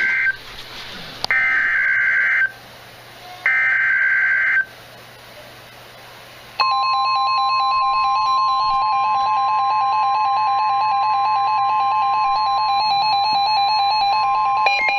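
Emergency Alert System data header: three loud one-second bursts of screeching digital tones, about a second apart. After a short pause, the steady electronic alert tone sounds for about nine seconds, signalling that a new severe thunderstorm warning is about to be read.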